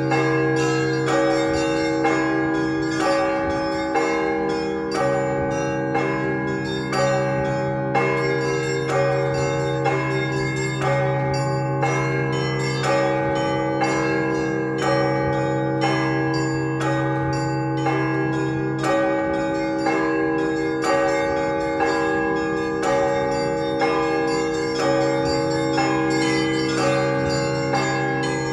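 Russian Orthodox church bells in a festive peal (prazdnichny zvon): small bells struck in a quick, dense pattern over the sustained ring of the larger bells, with a heavier stroke about once a second.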